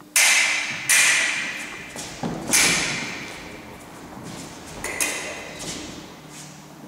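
Foil blades beating against each other in sharp, loud clashes, four main ones a second or two apart, each ringing out and echoing through the hall, with footwork thudding on the wooden floor.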